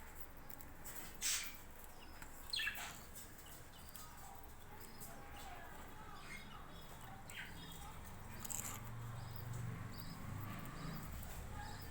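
Budgerigars chirping: scattered short, high calls, with two louder sharp chirps in the first three seconds. A low hum comes up in the second half.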